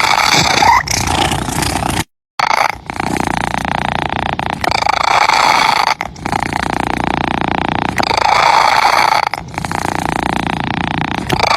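Domestic cat purring close to the microphone, a continuous rhythmic rumble that swells louder on alternate breaths about every three and a half seconds. It cuts out completely for a moment about two seconds in.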